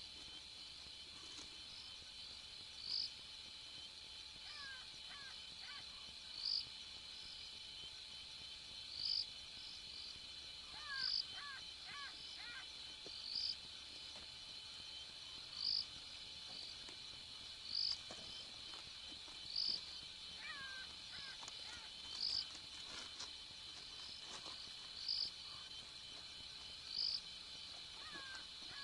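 Night insect chorus: a steady high-pitched chirring of crickets, with a louder short chirp repeating every two to three seconds. A few brief gliding calls from another animal come through faintly about 5, 11 and 21 seconds in.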